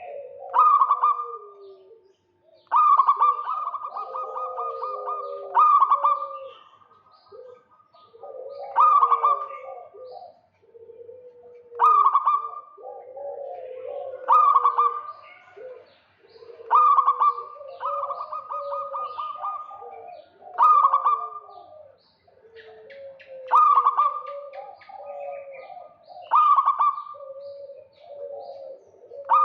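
Zebra doves (perkutut) cooing in a repeating phrase about every three seconds, each opening with a loud, quickly pulsing higher note and trailing into lower warbling coos, with calls overlapping as birds answer one another.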